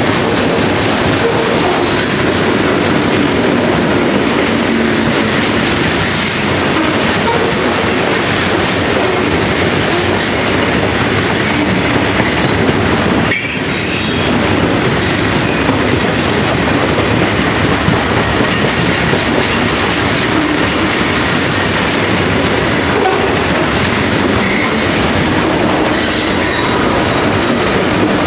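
Long freight train of loaded stone cars rolling past close by: a loud, steady rumble of steel wheels on rail with clickety-clack.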